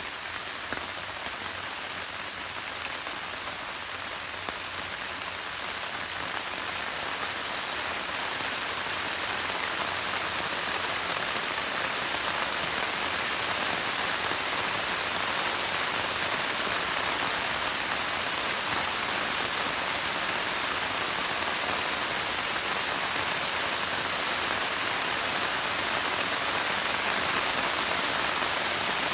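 Steady rain falling, an even hiss that grows heavier over the first ten seconds or so and then holds.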